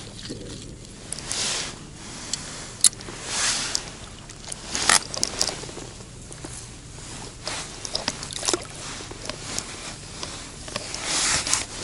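Rustling and scraping of a landing net and clothing, with scattered sharp clicks, as a just-landed crucian carp is handled and unhooked.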